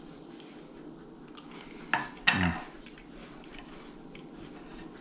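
Ceramic bowl and plate clinking and scraping lightly: scattered small clicks, with one sharper clink just before two seconds in and another a moment later.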